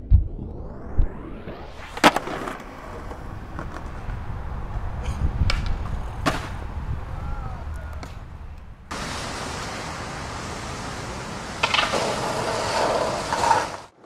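Skateboard on concrete: a deep thump at the start, wheels rolling, and several sharp clacks of the board striking the ground, then a steady hiss that comes in suddenly about nine seconds in.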